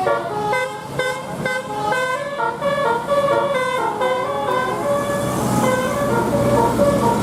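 Indonesian bus 'telolet' horn, a multi-trumpet musical air horn, playing a quick tune of short stepped notes, the notes holding a little longer toward the end.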